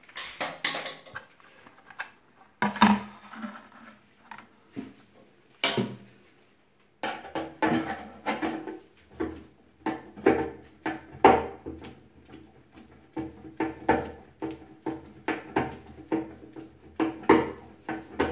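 Screwdriver driving a fixing screw into the side of a washbasin pedestal: clicking, clattering and scraping of the tool in the screw head against the pedestal. A few sharp knocks in the first seconds, then steady clicking at about two to three a second from about seven seconds in.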